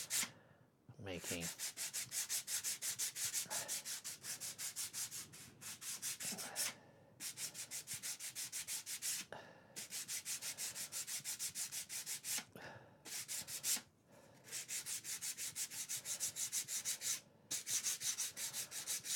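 Small wooden model-boat part rubbed back and forth on sandpaper by hand, quick even scraping strokes several a second, in runs broken by short pauses. This is sanding the corners smooth.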